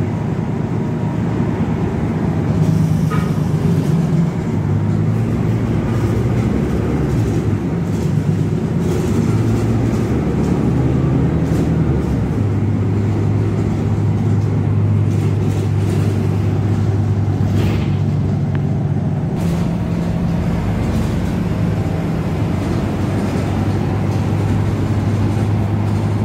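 Volvo TransJakarta city bus driving, heard from inside the cabin: a steady low engine drone over road noise, shifting in pitch a few times.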